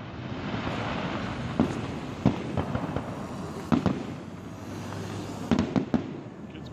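Aerial fireworks bursting: a sharp bang every second or so over a steady hiss, with a quick cluster of three bangs near the end.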